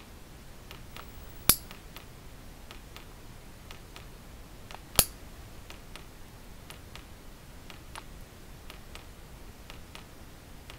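Water dripping into a sink: a scatter of faint, irregular ticks, with two much louder sharp drips, about a second and a half in and again about five seconds in.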